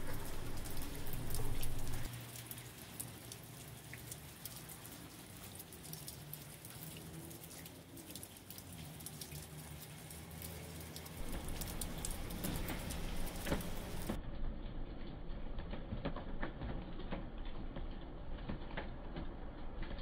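Snowstorm precipitation pattering steadily on surfaces, a dense run of small ticks over a hiss, with a low rumble that is loudest in the first two seconds.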